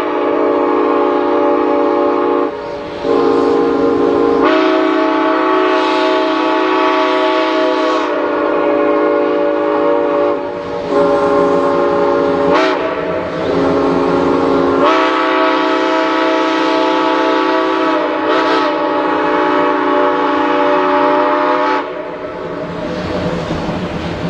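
Train horn sounding a chord of several notes in long, steady blasts, broken by short gaps and small shifts in pitch every few seconds, and stopping a couple of seconds before the end.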